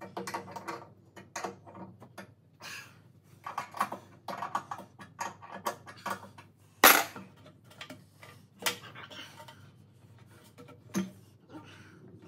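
Irregular metallic clicks, knocks and clatter from hands working V-belts and the motor mount of a lathe's belt drive, with one sharp bang about seven seconds in.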